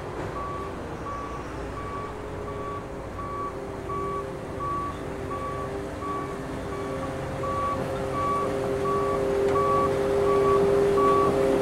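Kershaw ballast regulator travelling on the rails, its warning alarm beeping steadily about twice a second over the hum of its diesel engine. The engine grows louder in the second half as the machine comes closer.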